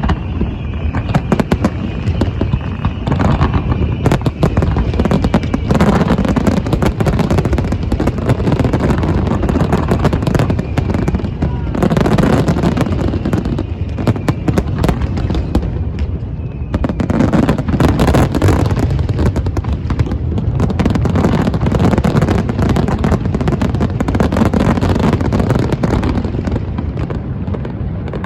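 Large aerial fireworks shells bursting in a dense, continuous barrage, overlapping booms and crackles with no break.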